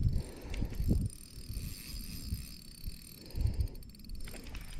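Wind buffeting an outdoor camera microphone in uneven low rumbling gusts, with a few faint clicks from handling the spinning reel.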